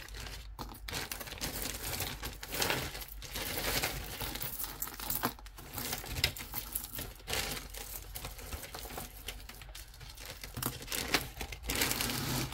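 Tangled costume jewelry being handled and pulled out: beads, chains and shells clicking against one another, with a crinkling rustle throughout.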